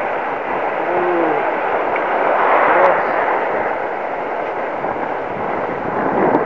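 Waves breaking and washing in around a wading angler as a steady rush of surf, swelling about two and a half seconds in.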